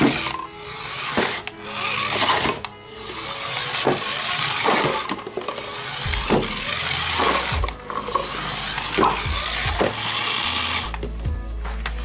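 Wired remote-control toy car's small electric motor and gears whirring as it drives and turns, with sharp clicks and knocks throughout.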